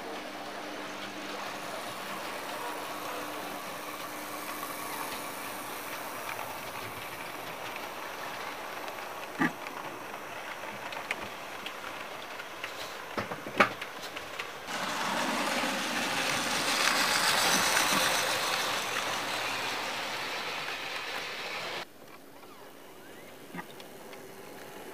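OO scale model trains running on the track: a steady whirr and rattle of wheels and motor with a few sharp clicks. It grows louder about two-thirds of the way through as coaches pass close, then drops off suddenly.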